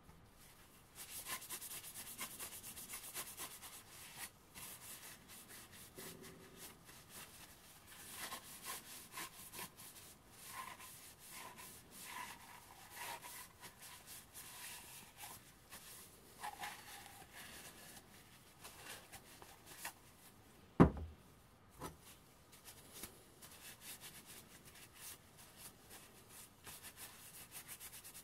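Cloth rubbed and wiped by hand over small metal mortar parts, giving an uneven, scratchy rubbing in short strokes. About two-thirds of the way through there is a single sharp knock, followed a second later by a smaller one.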